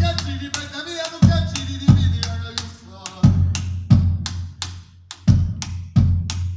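A man singing over live drums, deep drum strokes with sharp stick clicks between them. About three seconds in the singing stops and the drums carry on alone, a deep stroke roughly every second with quick clicks in between.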